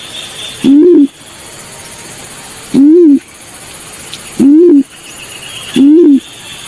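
Recorded balorinay bird call used as a hunting lure. Loud, low hooting notes repeat four times, each a short note that rises then falls.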